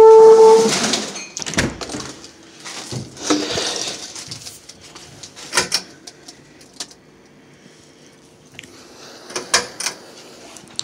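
Plastic storage tote being opened and rummaged through: a loud squeal in the first second, then scattered knocks, clicks and rustling as the contents are shifted about.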